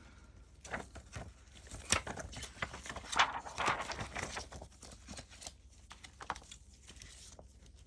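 Paper banknotes being handled and shuffled: irregular crinkling rustles and light taps, busiest in the middle.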